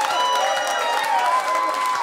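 Comedy-club audience laughing and applauding, with voices cheering and hollering over the clapping in reaction to a joke.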